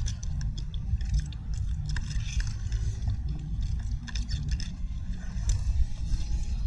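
Wind buffeting the microphone as an uneven low rumble, with many small clicks and scrapes of a spoon and fingers picking food from a plate.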